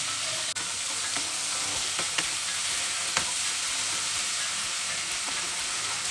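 Prawns sizzling steadily as they shallow-fry in hot mustard oil in a non-stick kadai, with a few clicks and scrapes of a spatula stirring them, the sharpest about two and three seconds in.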